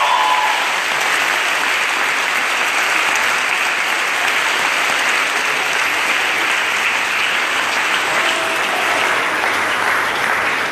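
A large crowd applauding steadily, with dense, sustained clapping that grows more uneven near the end.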